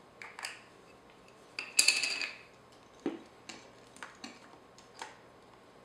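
Metal camera lenses and a mirrorless camera body being handled during a lens swap. A sharp metallic clink with a brief ring comes about two seconds in, then a string of small separate clicks.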